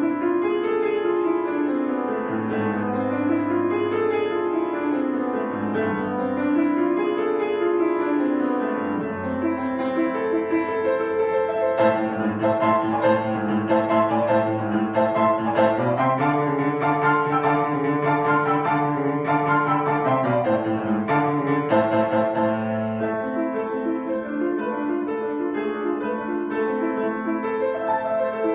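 Solo piano playing: rippling runs of notes that rise and fall over low bass notes, with a sustained chord held for several seconds about halfway through.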